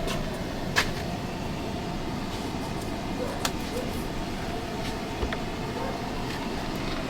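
Steady low mechanical hum with a faint steady tone, broken by a few light clicks.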